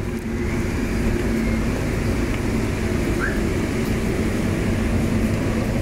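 Steady low background rumble of the surroundings, with a faint constant hum and no distinct events.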